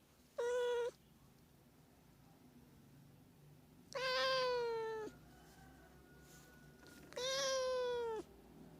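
Domestic cat meowing three times: one short meow, then two longer meows of about a second each that fall in pitch at the end.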